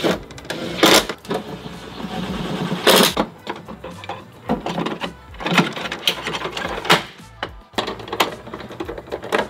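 Handling noise of a portable power station and its parts: a string of irregular clicks and knocks, the loudest about a second and three seconds in.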